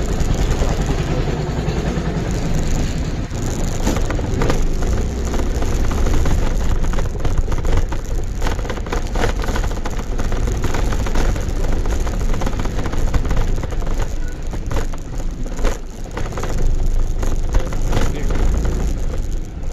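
Scooter in motion, heard from a phone mounted on its handlebar: the small engine running under a heavy, steady rumble of wind and road noise on the microphone, with many short knocks.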